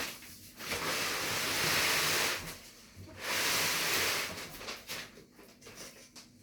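Washing machine being turned around on its packaging base: a knock, then two long scraping rushes of noise, each one to two seconds, followed by a few small knocks and rubs.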